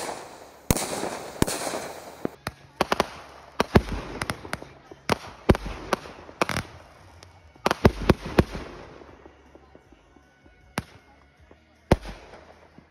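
Consumer aerial fireworks going off: crackling bursts, then a rapid run of sharp bangs that thins out to a couple of single reports near the end.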